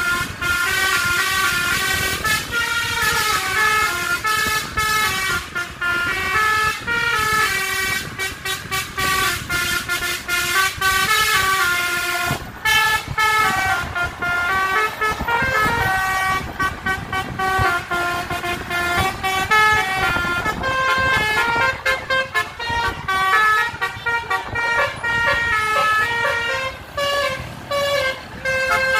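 A bus's basuri telolet horn, a set of multi-tone air horns, playing a tune. Its notes step up and down several times a second, with road noise underneath.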